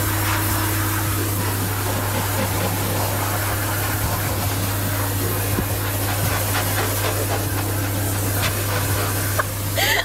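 K9000 self-serve dog wash machine running, a steady motor hum under an even hiss from its nozzle as a dog is washed or dried in the tub.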